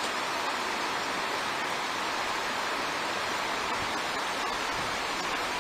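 A small river rushing steadily over low rock ledges and a rocky riffle, an even, unbroken sound of white water.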